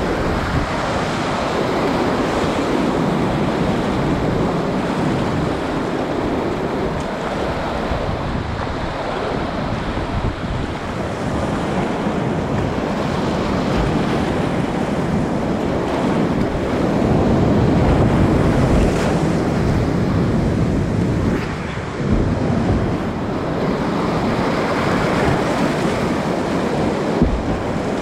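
Loud rushing whitewater of a river rapid churning around a kayak, swelling and easing but never stopping, with wind buffeting the microphone.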